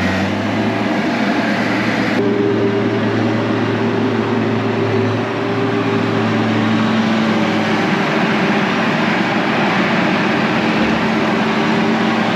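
Wheeled skid steer loader's engine running steadily under load as the machine pushes and lifts snow into a pile, a constant drone with no break.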